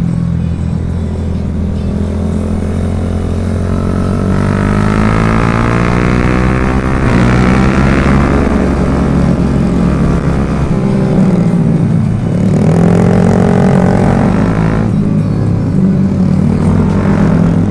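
Motorcycle engine running at speed under the rider, revving up and easing off twice as it accelerates and slows.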